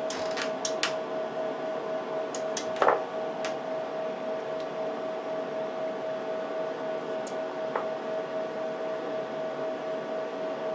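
Cooling fans of a running HP 54845A oscilloscope giving a steady hum with a constant mid-pitched whine. A few light clicks sound in the first few seconds and once more about seven seconds in.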